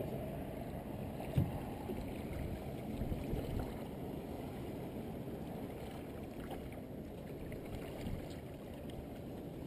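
Steady low rush of water and wind around a small boat, with a single light knock about a second and a half in.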